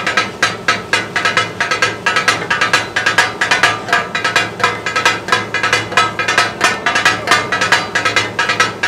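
Two metal spatulas rapidly and rhythmically clanging on a large flat iron griddle (tawa), chopping and mincing goat kidney, liver and testes into taka-tak. The strikes come several a second without a break, each with a short metallic ring. This clatter is the sound that gives the dish its name.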